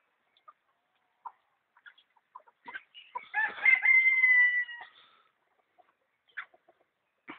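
Chickens squabbling: short scattered clucks, then about three seconds in one loud, long call held for about a second and a half before the clucking resumes.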